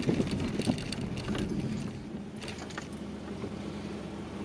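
Small car's engine running at a low idle, heard from inside the cabin, with a few light rattles and clicks.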